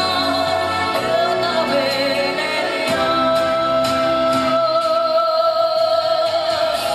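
Music with singing, with a long held note in the melody through the second half.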